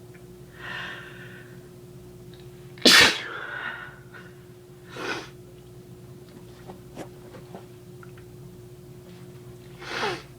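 A person sneezing out loud, unstifled, the sneezes brought on by sniffing a powder. A softer breathy build-up comes under a second in, then one loud, sharp sneeze about three seconds in, and shorter breathy bursts near five and ten seconds.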